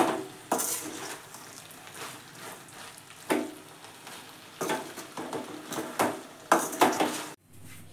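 Steel ladle stirring and turning rice in a steel pan, scraping and knocking against the metal every second or so, over a faint sizzle. It cuts off suddenly near the end.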